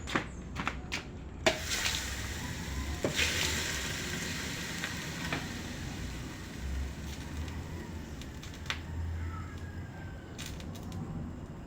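Electric arc welding on a steel bracket: a few sharp taps, then about a second and a half in the arc catches and crackles and sizzles steadily, easing off somewhat later on.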